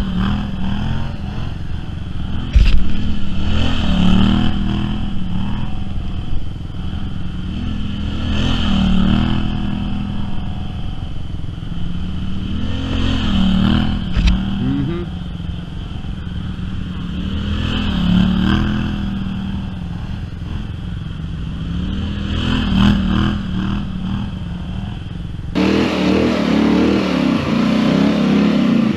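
Polaris Sportsman XP 1000 ATV engine revving up and easing off again and again, about every four to five seconds, as it pulls through mud in four-wheel drive, with two sharp knocks along the way. The sound changes abruptly near the end.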